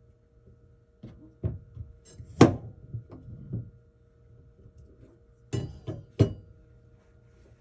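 Several sharp knocks and clatters of objects being handled and set down during food preparation, in two bunches, the loudest about two and a half seconds in, over a faint steady hum.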